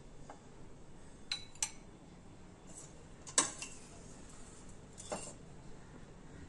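Spoon clinking against cookware as the cooked stuffed okra is served out: a handful of separate sharp clinks, the loudest about three and a half seconds in.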